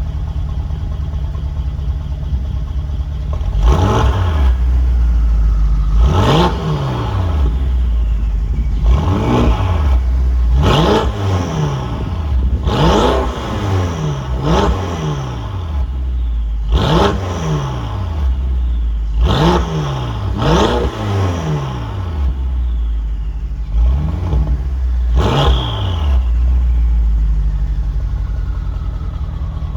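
BMW X6 M's 4.4-litre twin-turbo V8 through an Akrapovic titanium exhaust, idling and then blipped about eleven times in short rev bursts that fall straight back to idle. A faint turbo whistle falls away after several of the revs.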